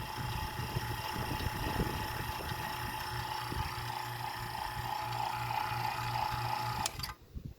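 A/C vacuum pump running steadily with a hum and a constant whine as it pulls a vacuum on the car's air-conditioning system, cutting off suddenly near the end.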